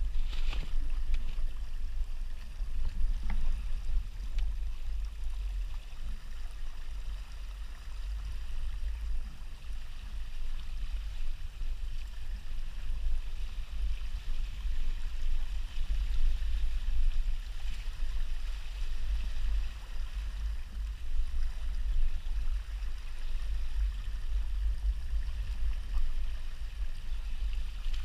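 Water rushing and splashing along the hull of a Hobie Tandem Island sailing kayak under sail, steady throughout, with a gusting low rumble of wind on the microphone.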